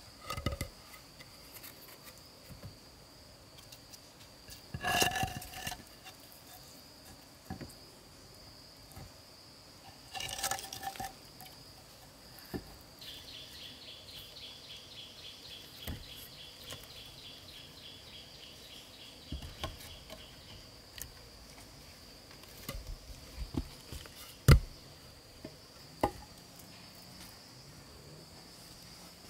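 Wooden logs knocking and clunking against each other as they are stacked into a shelter wall: several separate knocks, the loudest about five and twenty-four seconds in. Behind them runs a steady high insect drone, and an insect chirps rapidly from about thirteen to twenty seconds in.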